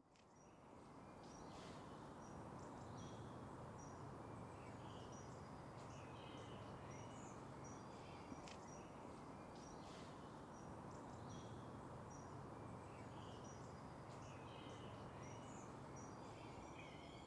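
Faint outdoor ambience of small birds chirping and calling repeatedly over a low, steady hum, fading in at the start.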